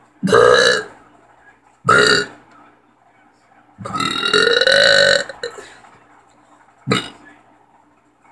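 A person burping deliberately, four times: two short burps, then a long drawn-out one with a rising pitch about four seconds in, then a short one near the end.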